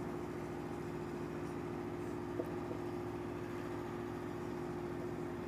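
Steady low mechanical hum of room noise with a couple of held tones, and one faint tick about two and a half seconds in.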